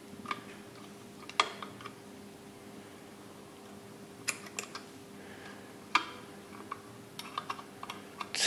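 Scattered light clicks and taps of a plastic oil can's nozzle and fingers against a small brass-and-tinplate toy steam engine as it is oiled, with a quicker run of clicks near the end. A faint steady hum runs underneath.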